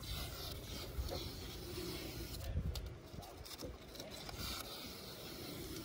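Blue painter's tape being peeled off a boat's gelcoat hull, a quiet tearing scrape, over a low background rumble.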